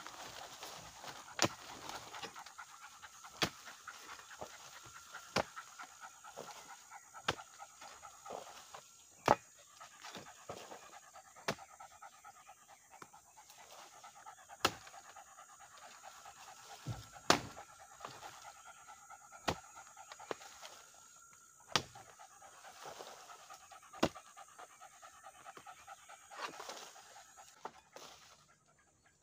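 A dog panting fast and steadily close by, with a small hoe striking the earth about every two seconds as a burrow is dug out. The panting stops shortly before the end.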